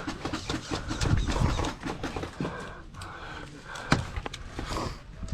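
Camera-wearer's footsteps and gear knocking about, with heavy breathing, as an airsoft player moves on foot; there is one sharp click about four seconds in.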